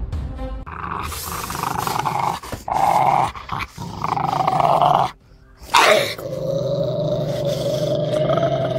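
Dog growling: several rough growls broken by short pauses, then, after a brief gap, one long steady growl in the second half.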